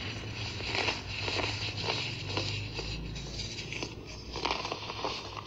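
Compacted baking soda balls and lumps being crushed and crumbled between fingers: a steady run of soft crunches and crackles.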